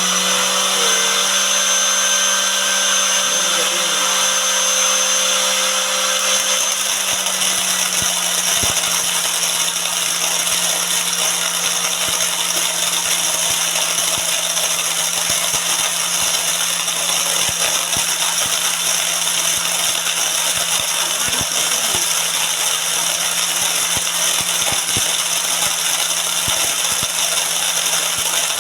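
Electric motor of a homemade corn mill built from a Modern-brand grinder, running steadily at speed with a constant hum. From about eight seconds in, the tone roughens and a dense, irregular crackle of ticks comes in as dried corn kernels are milled into fine meal.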